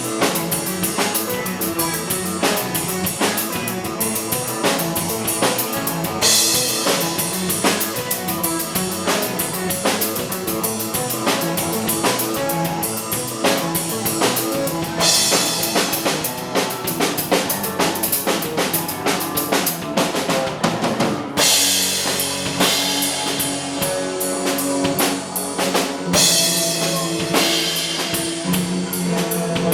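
Live band playing loud music: a drum kit keeps a steady beat under sustained, effects-heavy instruments, with bursts of crashing cymbals every several seconds.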